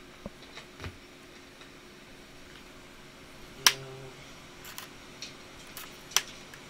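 Scattered plastic clicks and taps from handling a Toshiba Satellite laptop's screen lid while its inverter board is being pulled out, with a sharp snap a little past halfway and another near the end.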